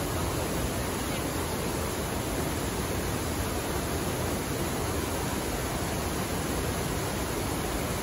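Steady rush of a wide waterfall, with river water pouring down several tiers of rock ledges in an even, unbroken noise.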